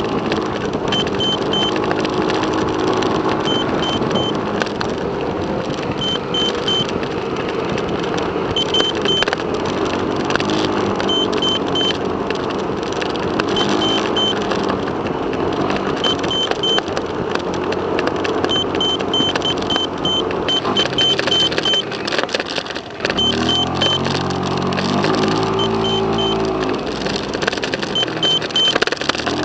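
Steady road and engine noise of a moving car, heard from inside the cabin, with changing pitched tones over it.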